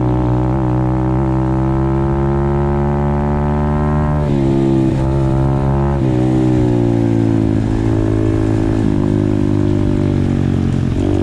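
Apollo RFZ 125cc pit bike's single-cylinder four-stroke engine running hard at high revs under the rider. The engine note holds steady, drops briefly about four seconds in, climbs back a couple of seconds later and dips again near the end.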